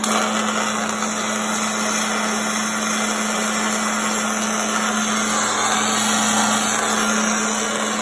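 Spool-gun MIG welder welding aluminium: a steady crackling hiss of the arc, held without a break, over a steady low hum.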